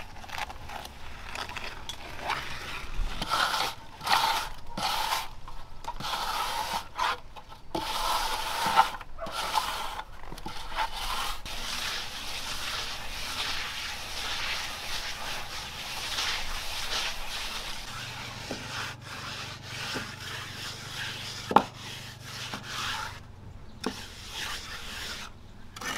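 Wooden plastering float scraping and rubbing wet cement render across a brick wall, in repeated strokes with short pauses at first, then steadier smoothing. A single sharp knock comes about two-thirds of the way through.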